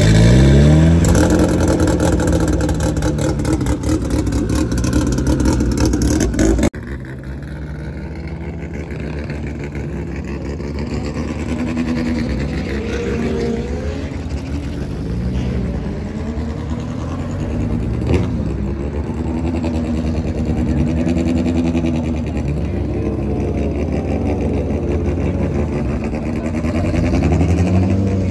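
Drag-car engines running loud and revving for the first several seconds, cut off abruptly. Then a turbocharged four-cylinder in an AWD Mitsubishi Eclipse drag car runs with repeated throttle blips, the revs rising and falling every two to three seconds.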